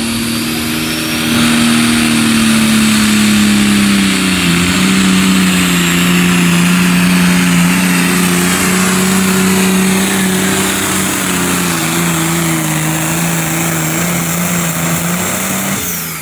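Competition pulling tractor's engine running flat out under load as it drags the sled down the track. Its pitch steps down slightly about four seconds in and again later, with a high whine falling in pitch above it. The engine drops off just before the end as the pull finishes.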